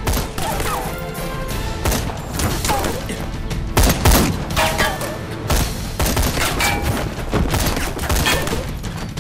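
Gunfight sound effects: irregular gunshots, including pistol shots, fired in quick succession. The loudest shots come about four seconds in.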